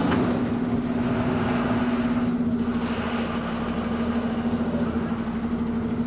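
Ashok Leyland truck's diesel engine running steadily at idle speed as the truck creeps forward onto the wash bay.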